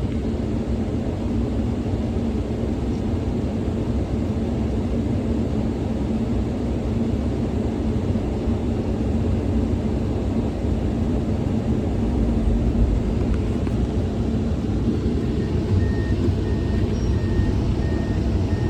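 Komatsu 210 excavator's diesel engine running steadily under hydraulic load as the boom, stick and bucket are worked. Near the end a faint beep starts repeating at an even pace.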